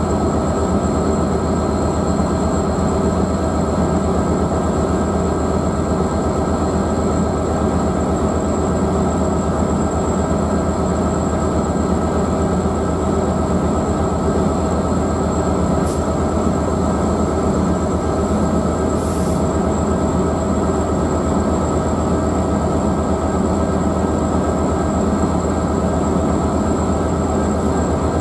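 Diesel passenger train standing at the platform with its engine running: a steady, even drone with constant whining tones that does not change.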